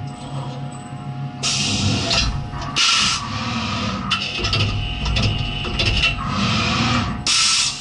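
Skyfire SVM-1 CNC mini mill changing tools: a steady machine hum broken by several short hissing bursts as the spindle releases and picks up tool holders from the automatic tool changer.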